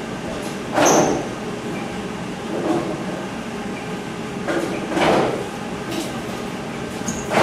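Bowling-alley machinery: a steady low rolling rumble, with two heavy clunks, one about a second in and another about five seconds in, typical of the ball return and pinsetter working between shots.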